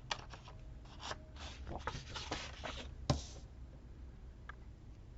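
Hands working with paper and a sticker sheet: light rustling, scratching and small taps for about three seconds, with one sharper click about three seconds in, then quieter.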